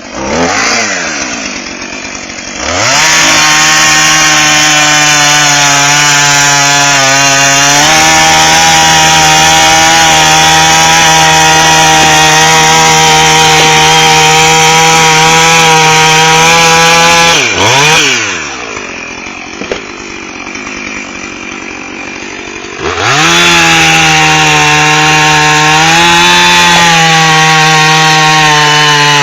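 Husqvarna 450 e-series two-stroke chainsaw idling, then throttled up about three seconds in and held at high revs for some fifteen seconds. It drops back to idle for a few seconds, then is throttled up again to high revs.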